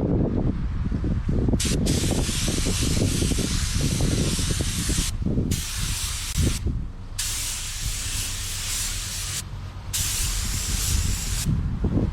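Paint spray gun spraying basecoat in short passes: a hiss that starts about two seconds in and stops and restarts three times, over a steady low rumble.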